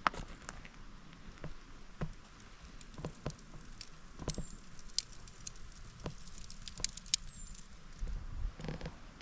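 Footsteps on a forest path: irregular soft crunches and small snaps of twigs and litter underfoot.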